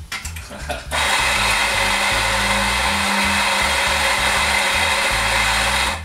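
Macap M5D on-demand coffee grinder running a timed dose of about five seconds, a steady motor-and-burr grinding noise with a low hum that starts abruptly about a second in and cuts off at the end.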